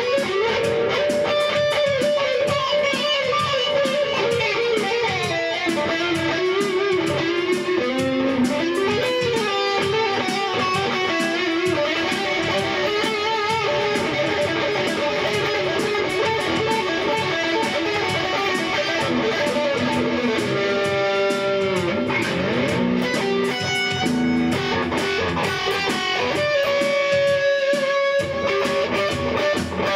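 Rock instrumental led by an electric guitar playing a melodic lead line, its notes bending and wavering in pitch.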